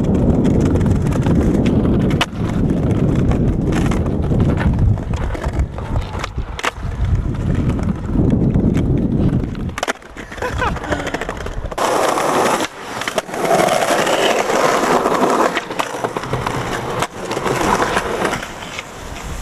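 Skateboard wheels rolling over stone paving, with sharp clacks of the board popping and landing. From about halfway, the metal trucks scrape along stone ledges in grinds, a rougher, higher scraping with little of the low rumble.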